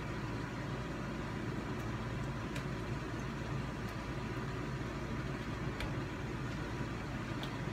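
Steady low background hum with hiss, with three faint brief clicks spread through it.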